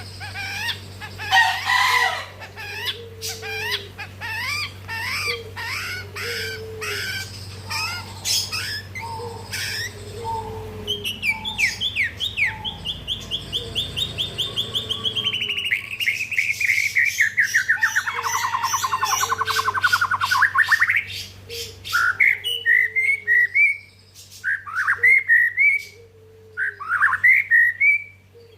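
White-rumped shama (murai batu) singing a varied song: quick sharp notes and short whistles, then a long fast trill that slides down in pitch through the middle, then short rising whistled phrases near the end. A steady low hum runs underneath.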